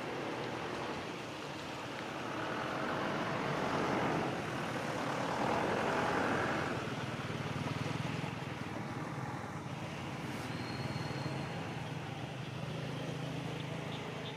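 A motor vehicle passing, growing louder and then fading over a few seconds, followed by a steady low engine hum.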